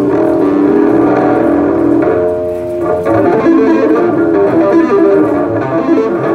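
Electric bass guitar played solo through a loud amplified stage rig: held notes for the first couple of seconds, then a quick run of notes from about three seconds in.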